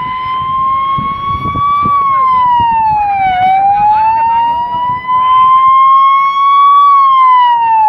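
Fire engine's siren wailing, rising slowly in pitch and falling more quickly, a full cycle about every five seconds. It grows louder as the truck approaches.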